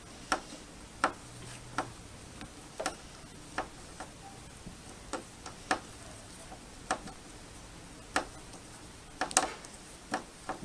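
Phillips screwdriver turning a screw into the TV stand mount, giving a sharp click about once a second, a dozen times in all, as the bit works in the screw head.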